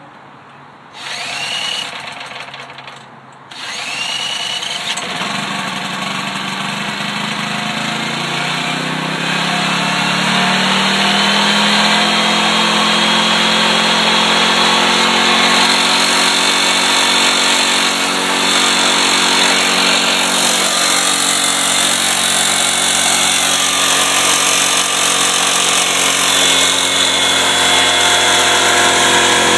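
Small portable gasoline generator engine spun over with a cordless drill on its starter nut: two short rising drill whines, and after the second the engine catches and runs up to a steady speed. It is running on gasoline vapor from an ultrasonic-transducer vaporizer.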